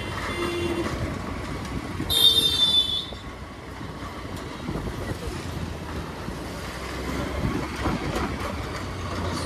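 Running noise of a moving scooter, a steady rush of engine and road sound. A short, high-pitched vehicle horn honks about two seconds in, the loudest sound.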